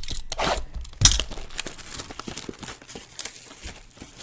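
Packaging being torn and crinkled by hand in irregular rustles and crackles, with a sharp tear about a second in.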